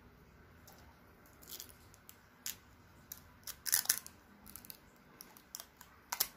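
Clear plastic film crinkling and crackling as it is peeled off a small plastic wall charger, in irregular sharp crackles, loudest about four seconds in and again just before the end.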